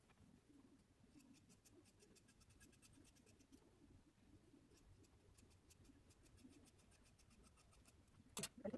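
Faint dressmaking scissors cutting through saree fabric, a quick run of fine ticks as the blades work. A brief louder noise near the end.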